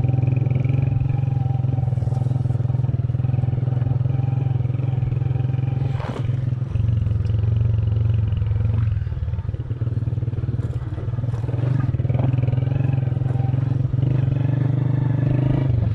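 Motor vehicle engine running steadily at an even pitch while travelling over a rough dirt track, with a few knocks and rattles from bumps. The engine eases off briefly about six seconds in and again around ten seconds in.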